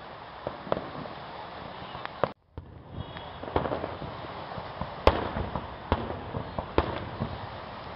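Aerial firework shells bursting in a show, sharp bangs at irregular intervals over a steady background noise, the loudest about five seconds in. The sound drops out briefly about two and a half seconds in.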